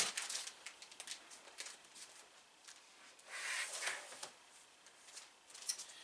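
Soft rustling and small clicks of sewing supplies being handled on a worktable, with a longer rustle about three and a half seconds in and a sharp click near the end.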